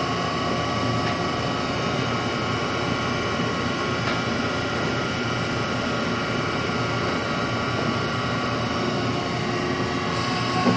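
CNC vertical machining center spiral-milling heat-treated 4340 alloy steel with a 3/8 carbide ball end mill, cutting dry on a semi-finishing pass. The spindle and cut make a steady machining drone with a constant whine.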